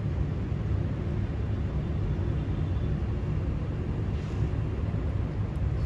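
Black kitten purring steadily as its head is stroked: a low, continuous rumble.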